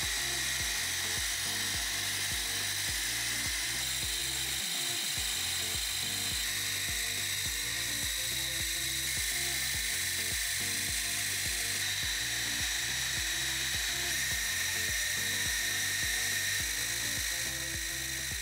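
Rice grinding mill milling toasted glutinous rice into fine flour: a steady high whine, over background music with a regular beat.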